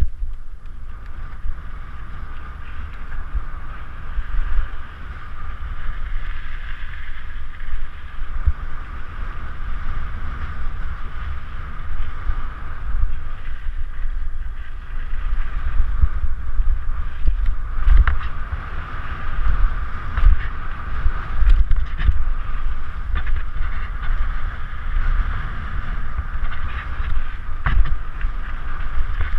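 Mountain bike rolling fast down a dirt trail: a steady rush of wind on a helmet-mounted GoPro over a jolting low rumble from the tyres and frame on the rough ground, with occasional sharp knocks as the bike hits bumps.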